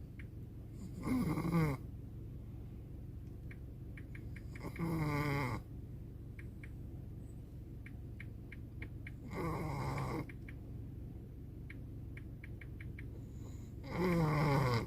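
A Pomeranian–Chihuahua mix dog snoring in its sleep: four loud snores about every four to five seconds, each under a second long and falling in pitch.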